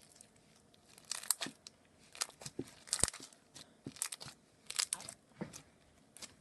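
Foam-bead slime being squeezed and kneaded by hand, giving irregular crunchy crackles about once a second.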